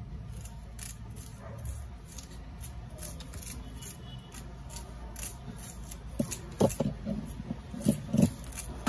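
Kitchen knife slicing through a red onion held in the hand: a run of short, crisp cuts, with a few louder taps and knocks in the second half.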